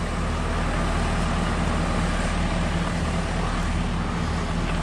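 Engine idling steadily just after a cold start in below-freezing weather.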